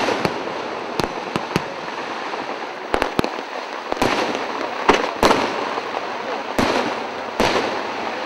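Aerial fireworks display: a dozen or so sharp bangs of shells bursting at uneven intervals, with a continuous crackle in between.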